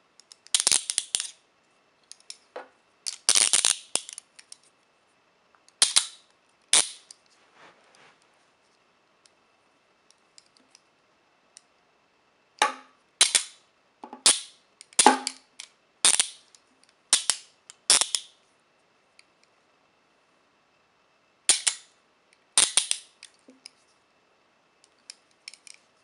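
Steel rigid-bar handcuffs (Speedcuffs) being handled: sharp metallic clicks and short ratcheting rattles as the cuff bows are swung through their locking ratchets. The clicks come in clusters of one to four, with pauses between them.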